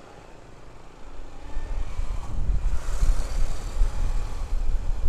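Motorcycle riding off and gathering speed. From about a second in, a low, uneven rumble of wind on the microphone grows loud and stays.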